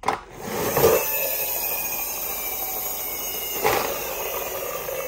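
A push-along toy police car whirring steadily as it is shoved and rolls across a tile floor, its whir slowly falling in pitch. There is a knock about a second in and another just before four seconds.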